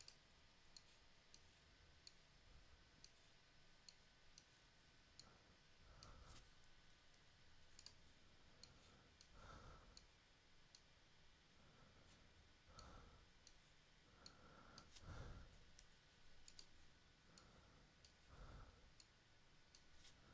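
Near silence with faint, irregular computer-mouse clicks, roughly one every half second to a second, and a few soft, muffled low sounds in between.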